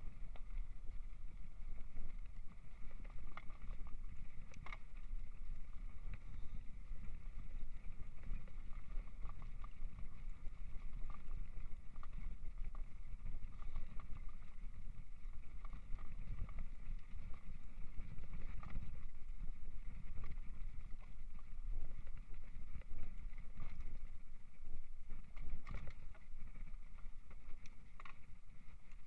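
Mountain bike riding over a bumpy dirt and grass trail, heard from a camera on the handlebars: a steady low rumble of tyres on the ground and wind on the microphone, with the bike knocking over bumps now and then.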